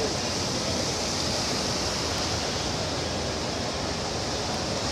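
Steady, even hiss of rushing water, with no engine or voice standing out over it.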